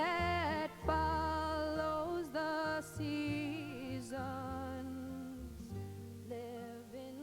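A song: a singer holding long notes with vibrato over sustained instrumental accompaniment, slowly fading.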